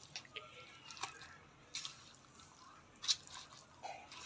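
Plastic spoon mixing mutton pieces with yogurt, fenugreek leaves, spices and mustard oil in a plastic bowl: soft wet squishing with scattered light clicks. The sharpest click comes about three seconds in.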